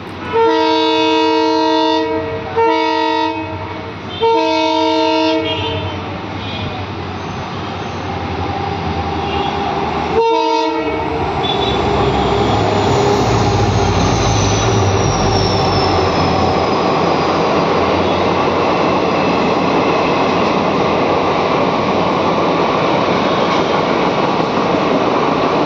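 WDP4D diesel locomotive sounding its multi-tone horn: three long blasts in the first five seconds and a short one about ten seconds in. Its EMD two-stroke diesel engine then swells and passes, and the passenger coaches roll by with a steady rattle of wheels on rail joints.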